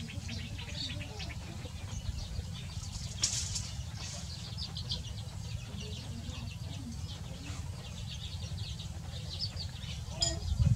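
A brood of chicks peeping busily in rapid, high little chirps while a mother hen clucks softly now and then, with a louder cluck from her near the end, over a steady low rumble.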